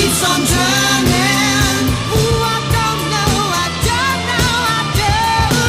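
Background music: a song with a singer's voice over a steady beat.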